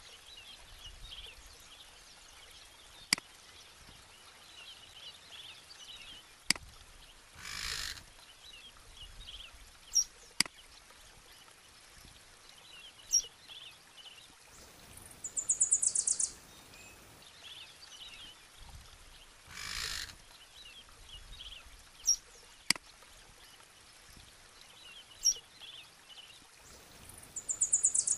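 A background nature recording of small birds chirping. A high, fast-pulsed trill sounds twice, about halfway through and again near the end. A few sharp clicks stand out over it.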